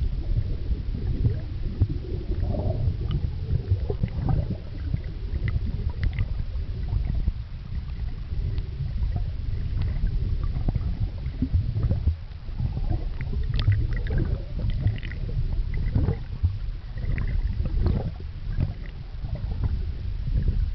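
Muffled underwater noise picked up by a camera sealed in a plastic bag: a constant low rumble of water movement and handling, with scattered small clicks and crackles.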